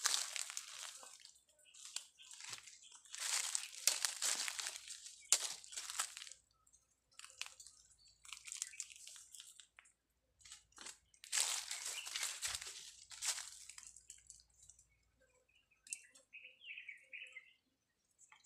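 Dry roots and twigs crackling and snapping in irregular bursts as they are pulled and broken by hand from a tangled root mass. A few faint bird chirps come near the end.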